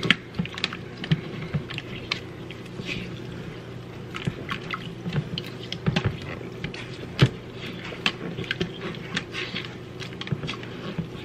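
A makeup brush being swished and worked in a bowl of water, making small irregular splashes and squelches over a steady low hum.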